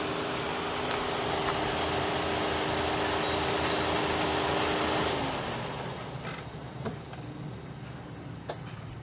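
Car driving slowly and pulling up, with steady engine and tyre noise; about five seconds in, the engine note drops and the sound falls away as the car comes to a stop, followed by a few faint clicks.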